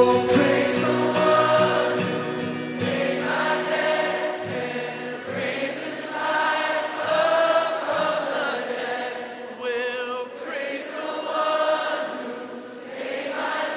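Music with a choir singing, with low sustained instrumental notes under the voices for the first few seconds.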